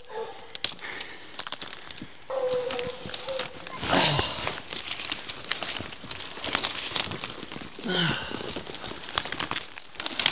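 Hounds barking and calling from a hole among big rocks where they have something cornered, with a held call about two seconds in and sharp barks near four and eight seconds. Crunching steps and rustling brush as a person scrambles over rocks go on throughout.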